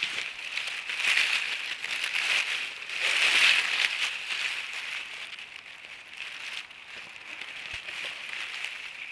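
Close rustling and crackling of grass and dry pine-needle litter being pushed aside by a hand right by the microphone, loudest about three seconds in.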